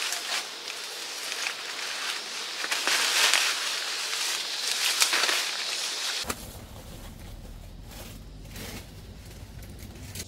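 Dense rustling and crackling of dry plant material. About six seconds in it gives way abruptly to a quieter, steady low rumble.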